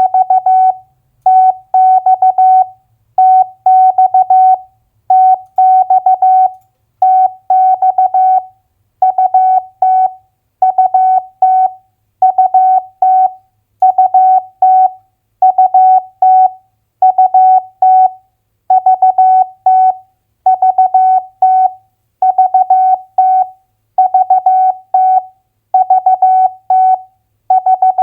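Morse code sent at 15 words per minute as a single steady mid-pitched tone keyed on and off in dots and dashes. It spells out two-letter US state abbreviations in short groups, with a brief pause between each.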